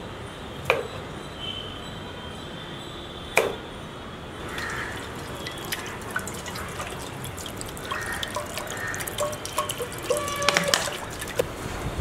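A knife chopping cauliflower on a wooden cutting board, two sharp knocks. Then, about four seconds in, water poured from a jug into a metal cooking pot, splashing and dripping, with a cluster of splashes near the end.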